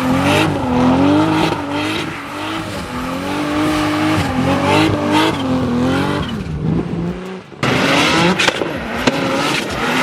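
A car engine being revved up and down hard while drifting, with tire noise under it. A little past seven seconds it drops off briefly, then comes back louder and hissier.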